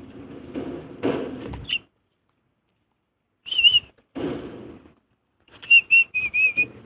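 Bird calling: short wavering whistled notes, a pair near the middle and then a quick run of about five near the end, over stretches of background noise.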